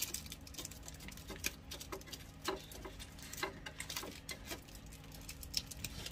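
Small wrapped candies dropped one by one into a plastic toy candy claw machine, landing in the candy pile inside with light, irregular clicks a few times a second.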